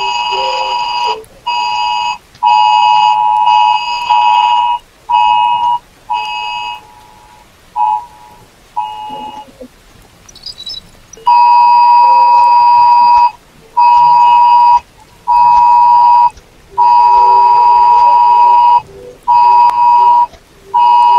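Mobile phone emergency alert tone blaring loudly: a two-tone alarm near 1 kHz sounding in on-off pulses of one to two seconds. It drops back for a few seconds in the middle, then a second phone's alert sounds louder in longer pulses.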